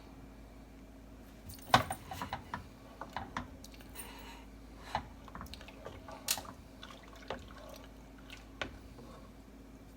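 Pudding mixture being stirred in a saucepan, the utensil clicking and knocking against the pot at irregular intervals, over a steady low hum.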